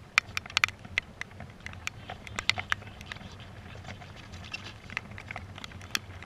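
Irregular sharp taps and clicks, several a second and some much louder than others, like raindrops hitting the goal-mounted camera's housing, over a steady low wind rumble on the microphone.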